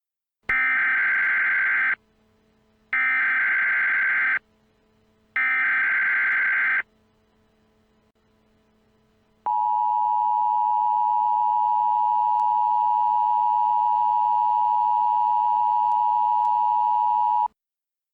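Emergency Alert System opening: three short bursts of SAME header data warble, about a second apart, then the two-tone EAS attention signal held steady for about eight seconds.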